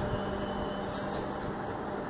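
USHA Chota Bheem fan running with a steady hum and whir, the noise its owner reports as a fault.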